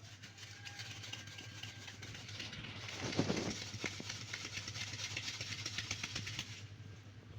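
A dense run of sharp crackles and clicks over a steady low hum, with a brief heavier rumble about three seconds in.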